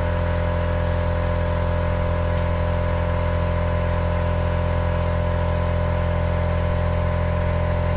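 Air-powered vacuum brake bleeder running on compressed air: a steady hiss with a constant hum under it, drawing brake fluid out through the opened rear bleed nipple.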